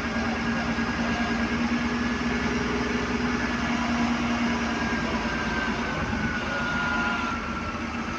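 A machine running steadily, an engine or motor, with a steady low hum and a faint high whine that slowly drops in pitch over the second half.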